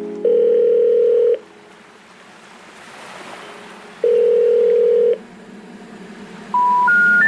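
Telephone call-progress tones: a steady low tone sounds twice for about a second each over a faint line hiss. Then three short beeps step up in pitch near the end, like the special information tone that comes before a recorded 'number cannot be reached' message.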